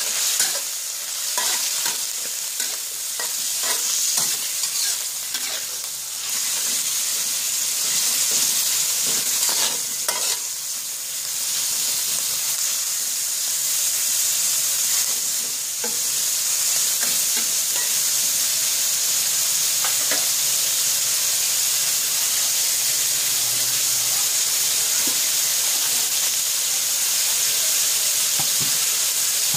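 Meat and garlic sizzling steadily in hot oil in a non-stick wok, stirred with a metal spatula that scrapes and clicks against the pan, most often in the first ten seconds or so.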